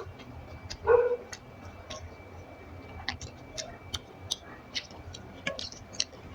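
Close-miked eating sounds: wet mouth smacks and clicks while chewing rice and fish curry, coming irregularly several times a second, with one louder smack about a second in.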